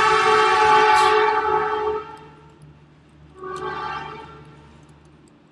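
A loud horn sounds two steady blasts: a long one of about two and a half seconds, then after a gap of about a second a shorter, weaker one that fades out.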